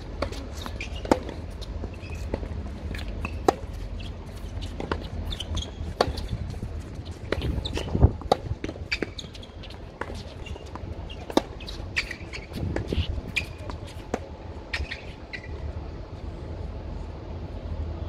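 Tennis rally on an outdoor hard court: a series of sharp ball strikes off the rackets and bounces off the court, one to two and a half seconds apart, the loudest about eight seconds in. The hitting stops near the end as the point finishes.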